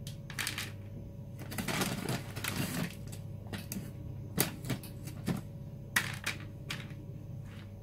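Plastic snack bag crinkling as pretzels are picked out of it, with light clicks and taps as a couple of pretzels are dropped into a lunch box.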